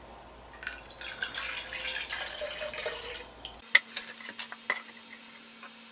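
Distilled water poured out of a graduated cylinder for about three seconds, then several light knocks and clicks as the cylinder is set down and a plastic gallon jug is handled.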